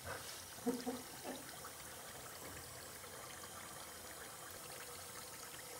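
Bathroom tap running into the sink: a faint, steady trickle of water.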